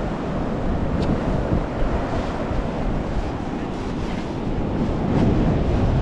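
Wind buffeting the microphone over steady ocean surf breaking on the beach: a dense, even rumble and hiss.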